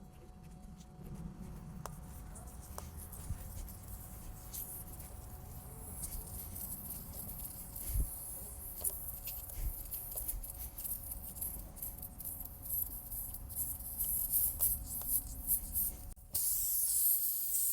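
A tire plug kit's T-handle spiral probe being worked into the puncture in the tire tread, rubber scraping and ticking faintly as the hole is reamed wider before a plug goes in. The scraping grows busier, and a louder hiss starts near the end.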